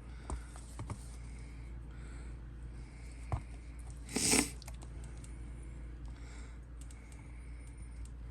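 3D-printed plastic parts being handled and fitted together: light clicks and taps, a sharper tap a little past three seconds in, and one louder brief scrape just past four seconds.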